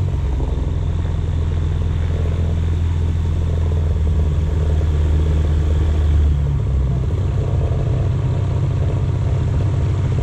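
Rans S6 light aircraft's engine and propeller running at low taxi power, a loud, steady low drone. About two-thirds of the way through, the deepest part of the drone drops away and the sound turns more ragged.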